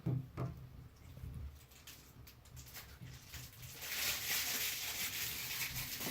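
A few light knocks and handling sounds, then about four seconds in, water starts running in a steady hissing stream.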